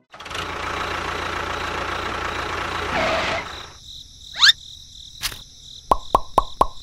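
Miniature toy tractor running steadily for about three and a half seconds, then stopping. A short rising whistle and a click follow, and near the end comes a quick run of plops, about three a second.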